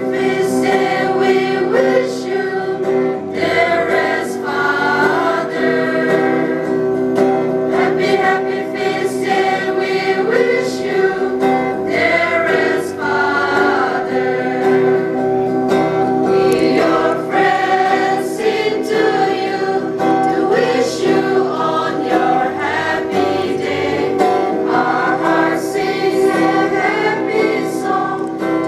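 A school choir singing together in unison, accompanied by a strummed acoustic guitar and amplified through loudspeakers.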